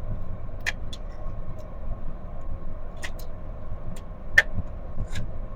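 Steady low machinery rumble with a faint steady hum, broken by a few sharp clicks, the loudest about four and a half seconds in.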